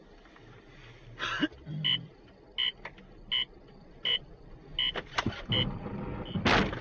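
An electronic warning beeper inside a car sounds a short high beep about every 0.7 seconds, six times. A loud noisy burst comes near the end.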